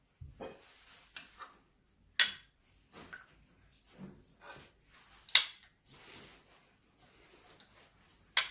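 A metal spoon scooping set yogurt from a pot into a white ceramic bowl: softer scrapes, and three louder sharp clinks of spoon on bowl spread through.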